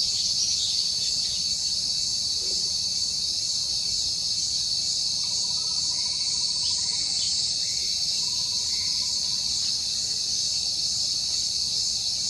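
Steady, shrill drone of a chorus of insects, unbroken throughout, with a few faint short calls partway through.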